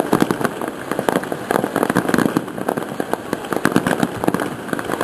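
Aerial fireworks going off in quick succession: a dense, irregular run of pops and crackles from bursting shells.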